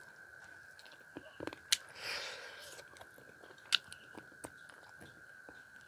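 Close-miked eating sounds of a man licking and sucking food off his fingers: sharp lip smacks and wet clicks, the loudest near two seconds in and again near four seconds, with a longer breathy suck just after the first. A faint steady high whine runs underneath.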